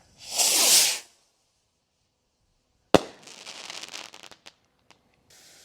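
A Black Cat Big and Bad firework rocket launching with a loud hissing whoosh. About two seconds later it bursts with one sharp bang, followed by scattered crackling for a second or two.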